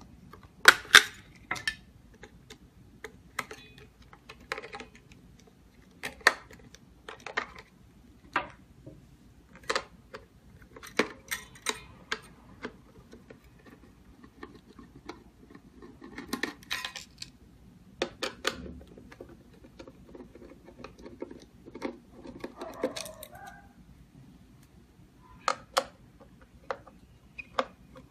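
Irregular sharp metal clicks, clinks and knocks of a keypad deadbolt door lock being taken apart by hand: its panels, screws and small parts handled.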